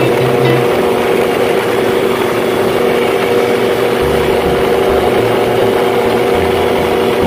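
Gyroplane's engine and pusher propeller running steadily at a constant note, with wind rushing over the open cockpit.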